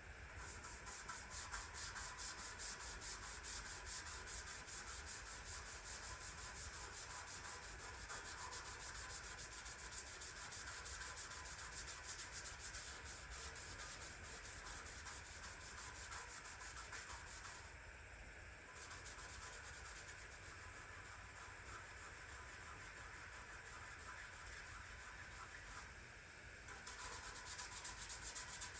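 Hand scrubbing of the old wringer washer's metal surface in soapy water: a continuous scratchy rubbing made of rapid back-and-forth strokes, easing briefly about 18 seconds in and again near 26 seconds.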